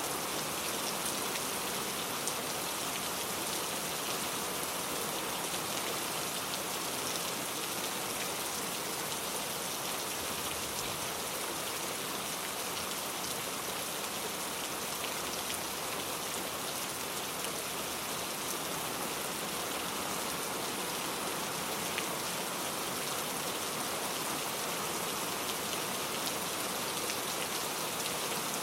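Heavy rain falling steadily, a dense even hiss of drops with small individual drop ticks scattered through it.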